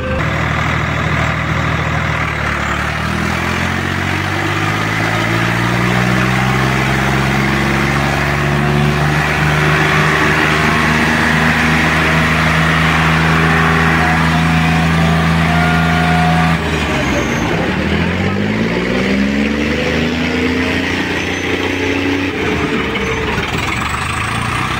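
Modified Swaraj tractor's diesel engine working flat out against a tug-of-war chain: the revs climb over the first few seconds and hold high and steady under heavy load. About two-thirds of the way through the revs dip sharply, then climb back up.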